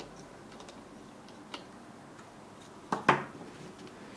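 Small screwdriver turning a screw into a plastic laptop base cover, giving faint light ticks, then a sharp double knock about three seconds in.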